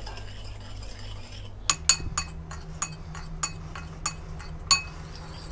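A metal spoon clinking against a ceramic bowl as a liquid dressing is stirred to dissolve the sugar: a run of about a dozen light, ringing clinks over roughly three seconds, starting a little under two seconds in. A steady low hum lies underneath.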